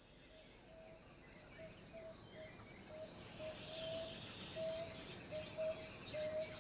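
Field recording of African savanna woodland played over loudspeakers and fading in: a steady run of short, low piping bird notes, about two a second, with higher bird chirps and insect calls.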